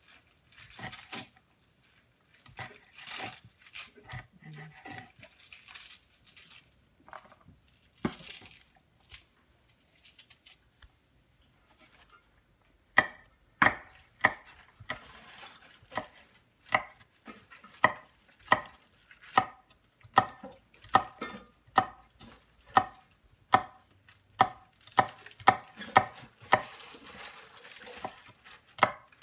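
Kitchen knife chopping vegetables: scattered cuts and handling noises at first, then from about thirteen seconds in a steady run of sharp knocks, a bit more than one a second.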